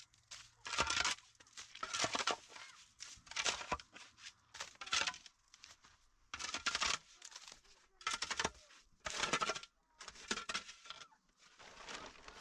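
A knife being drawn across a sharpening stone in a series of rasping strokes, about one every second or so, some longer than others.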